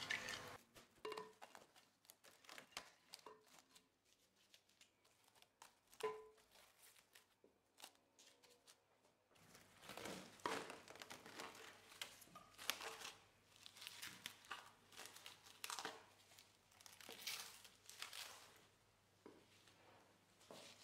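Faint crinkling and tearing of plastic cling film as it is pulled off its roll, torn and stretched over a glass bowl, densest in the second half, after a few scattered soft clicks and knocks.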